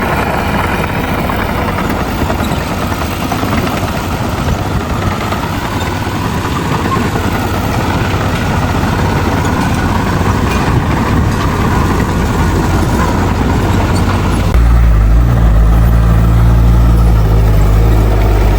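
Heavy diesel earthmoving machinery running continuously, the engine noise of a bulldozer working alongside dump trucks. About three-quarters of the way in, a louder, steady low engine drone suddenly comes in over it.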